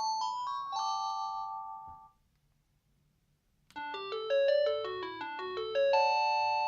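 Panasonic KX-TG6811 cordless phone playing its ringtones, electronic polyphonic melodies in chords of beeping tones. One ringtone ends about two seconds in. After a second and a half of silence the next begins with a quick run of notes and settles on a held chord near the end.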